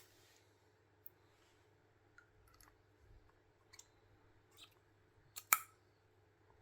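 Small parts of an airsoft gas-blowback rifle's bolt and nozzle assembly clicking and clacking as they are handled and fitted together. There are a few faint scattered clicks, with a sharper double click about five and a half seconds in.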